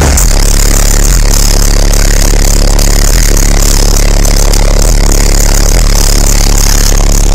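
Two Fi SP4 18-inch car subwoofers playing a deep, steady bass tone at extreme volume. The sound is so loud that the recording is overloaded and distorts into a hissing, engine-like drone.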